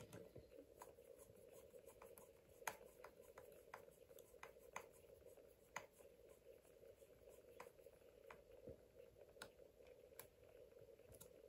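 Faint hand work on a radio-controlled car's ESC fan assembly: a dozen or so sharp, irregular clicks and taps of small parts being handled and fitted, the loudest about two and a half seconds in, over a steady hum.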